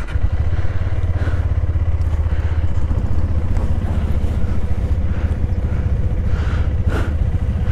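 KTM 390 Adventure's single-cylinder engine running steadily at idle, heard close up from the saddle.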